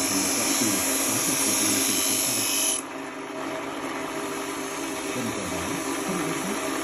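Power grinder working a knife blade, a steady high grinding hiss that cuts off abruptly about three seconds in, leaving a quieter steady noise.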